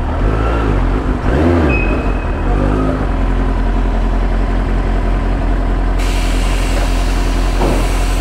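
A vehicle engine idling steadily, with a brief waver in pitch between one and three seconds in and more hiss from about six seconds in.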